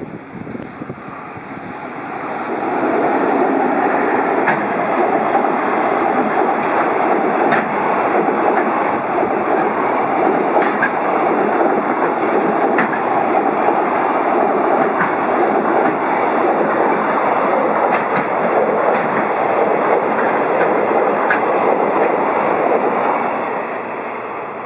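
EF65 electric locomotive and its long train of container flatcars passing close at speed: a steady loud rumble of wheels on rails with scattered clicks over the rail joints, dying away near the end as the last wagons go by.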